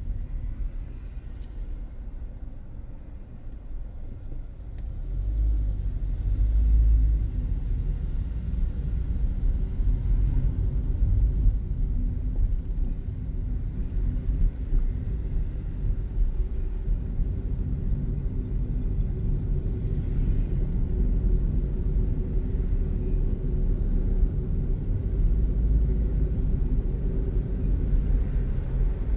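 Car driving, heard from inside the cabin: a steady low rumble of road and engine noise that swells briefly about five seconds in.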